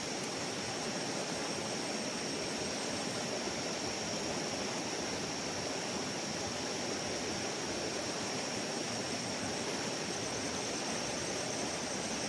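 Rushing water of a small river swollen and running fast after rain, a steady churning noise with no breaks. A thin, steady high-pitched tone sits over it.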